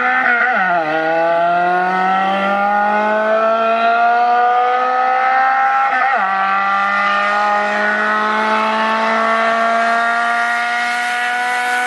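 Car engine pulling hard under acceleration, its pitch climbing slowly. The pitch drops briefly at a gear change about a second in and again about six seconds in.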